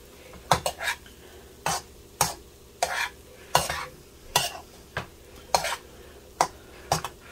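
A metal spoon scraping and turning fried rice in a nonstick pan, a short scrape about every half second to second, over a faint steady sizzle of the rice frying.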